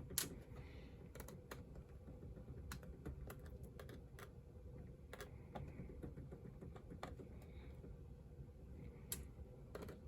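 Faint, irregular small clicks and taps: a Phillips screwdriver working tiny screws out of a laptop's screen mounts and the plastic parts being handled, over a faint steady hum.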